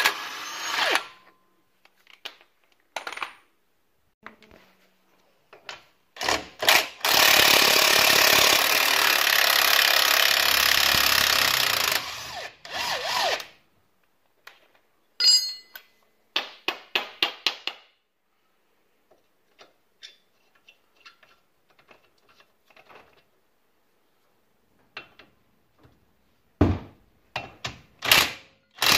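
Cordless impact wrench hammering bolts loose at a car's front hub. It runs in one long stretch of about five seconds starting around seven seconds in, with shorter bursts before and after and again near the end. Scattered light clicks of tools on metal fill the gaps.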